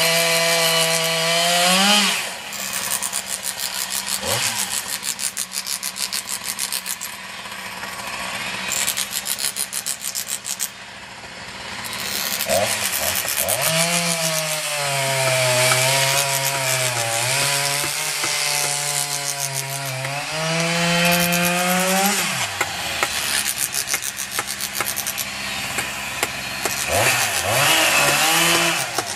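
Chainsaw cutting into a log, its motor pitch rising and sagging as it works, easing off about two seconds in and again about three quarters of the way through. Between the tonal stretches there is rougher rasping cutting noise from the wood.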